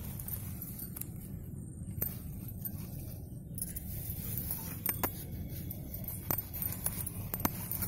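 Rustling of cucumber vine leaves and phone handling noise as a hand pushes through the plants, with scattered light clicks and ticks.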